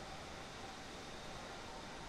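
Steady, even background hiss with a few faint high steady tones running through it and no distinct event.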